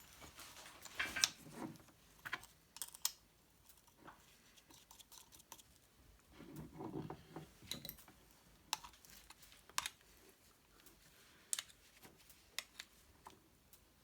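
Faint, scattered small clicks and handling of metal parts: a comb being fitted onto a Heiniger Extra shearing handpiece and its comb screw driven into the freshly Helicoiled thread of the aluminium head.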